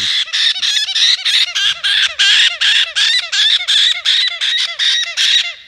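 Baby caique parrot chattering in a rapid, unbroken run of short, high squawking calls, about five a second, stopping shortly before the end.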